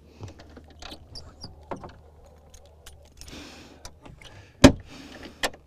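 Knocks, clicks and rattles of gear being handled in a boat, with two short stretches of hiss and a sharp loud knock a little under five seconds in, then another just before the end.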